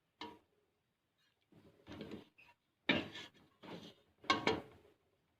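Cookware clattering: a series of short knocks and scrapes of a pot and utensils being handled, the sharpest knock a little past the middle.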